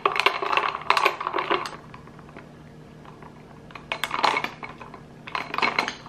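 Thin glass straw stirring ice cubes in a glass of iced milk and whipped coffee: rapid clinking of ice and straw against the glass, in two spells with a pause of about two seconds between them.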